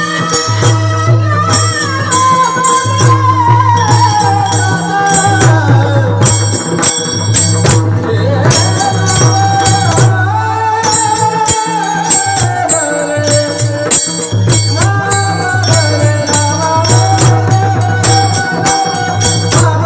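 Devotional folk music led by mridang (pakhawaj) drumming, with its deep bass strokes ringing under small hand cymbals clashing in a steady rhythm and a voice singing a sliding melody.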